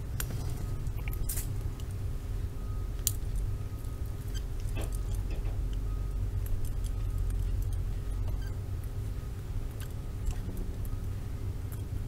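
Small metallic clicks and scrapes of a pick working inside a Peerless handcuff lock, with the cuffs jangling now and then, over a steady low hum.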